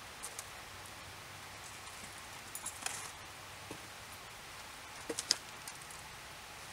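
Scattered light clicks and knocks from someone moving about a pole shelter, in a small cluster near the middle and another a little past two-thirds through, over a faint steady hiss.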